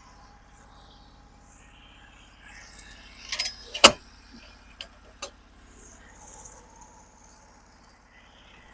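A sharp knock of a heavy sawn board being handled about four seconds in, with a few lighter clicks around it. Under it runs a steady low engine hum, with insects chirping.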